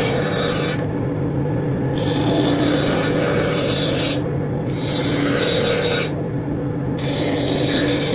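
Wood being worked with long rasping strokes, each lasting one to two seconds, with short pauses between them, over a steady lower rumble.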